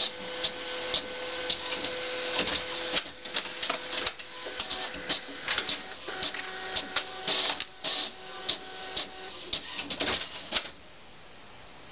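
Desktop printer printing: its mechanism whirs in short runs with many quick clicks, then stops near the end.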